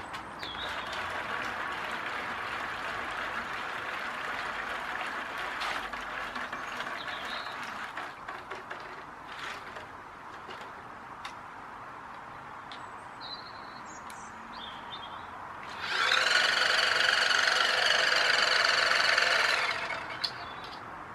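Small electric motors of a radio-controlled amphibious toy boat whirring as its foam-ball wheels churn in shallow water, struggling to climb the slippery slope out of the water for lack of motor power. Near the end, a much louder, steady high whine for about four seconds as the motors run with the wheels off the ground.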